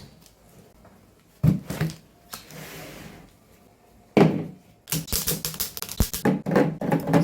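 Groceries and containers being handled and set down during fridge restocking: a thud about a second and a half in, another about four seconds in, then a quick run of clicks and rattles of small hard items.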